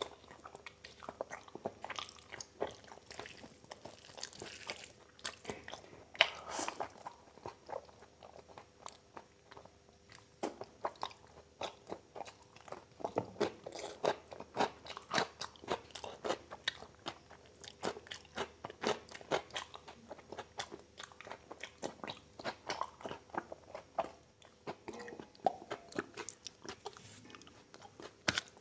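A person chewing and biting mouthfuls of oily mutton fat curry and chow mein eaten by hand, a dense run of short mouth clicks throughout.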